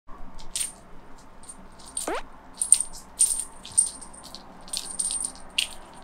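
Feather-wand bird cat toy rattling and jingling in short, irregular shakes as a kitten bats at it, with one quick falling squeak about two seconds in.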